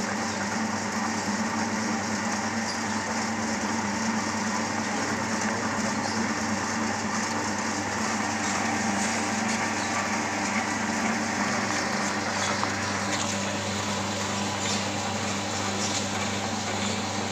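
Horizontal pellet press with a 4 mm die running steadily with a constant mechanical hum, as feed pellets pour from its chute into a tub.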